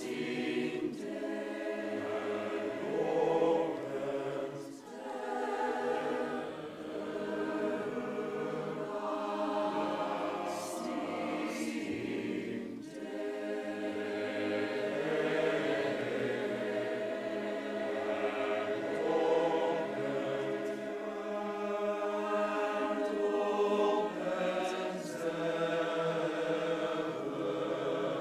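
Large mixed choir of men's and women's voices singing held chords in phrases, with short breaks between phrases about five seconds in and again near thirteen seconds.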